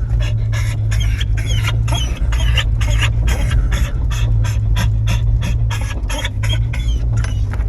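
Mixed pit bull dog panting hard and fast, about three breaths a second, over a steady low drone like a moving car.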